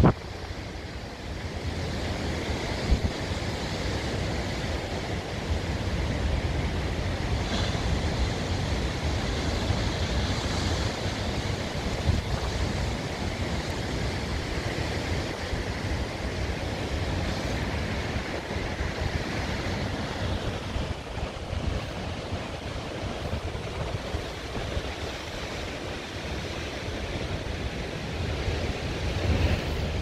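Ocean surf washing against the foot of sea cliffs as a steady rushing, with gusty wind buffeting the microphone as an uneven low rumble.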